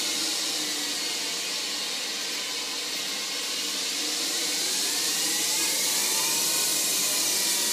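Lathe spindle motor, driven by a variable-frequency drive, running with a steady whine and hiss. The pitch sags slightly at first, then rises over about two seconds as the spindle is sped up to around 3000 RPM, and holds at the higher speed.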